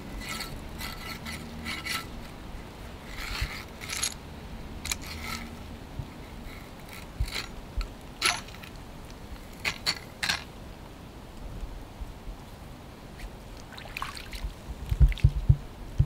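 Hands working in shallow water and mud at a bank while making a trap set: small splashes, scrapes and sharp clicks come scattered throughout. A quick cluster of low thumps near the end is the loudest sound.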